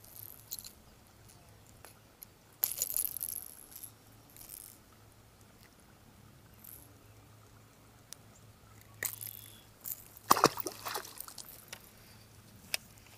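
Handling noise from unhooking a small bass caught on a topwater popper: scattered clicks, rustles and light knocks of the rod, reel and lure being handled, with a louder knock about ten seconds in.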